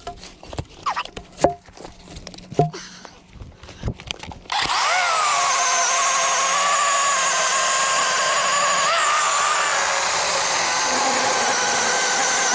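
A few knocks and clicks, then a DeWalt 20 V cordless chainsaw starts about four and a half seconds in: a steady electric motor and chain whine that dips in pitch just after starting, as the chain bites into the log, then holds steady while it cuts.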